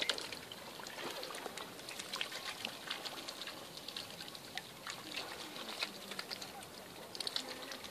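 Mute swan cygnets dabbling at the water surface with their bills while feeding: a busy run of small clicks and splashes, with water trickling.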